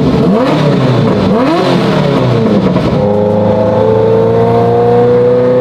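Ferrari F40's twin-turbo V8, fitted with a custom titanium exhaust, heard from inside the cabin while driving. The revs swing up and down several times over the first three seconds, then the engine settles into a steady pull with the revs climbing slowly.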